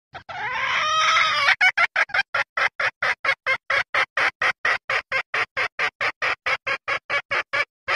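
Junglefowl hen's mating call, as used to lure cocks: a drawn-out call for about a second, then a fast, even run of short clucks, about four or five a second.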